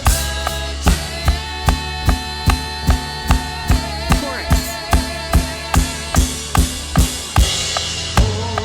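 Worship band music with a drum kit driving a steady beat, kick and snare hits falling about two and a half times a second over sustained keys and bass, with no singing.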